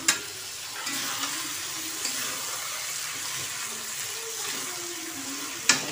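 Onions, tomatoes and spices frying with a steady sizzle in hot oil in a large aluminium kadhai while a spatula stirs them. A sharp knock of the spatula against the pan comes right at the start, and a louder one comes near the end.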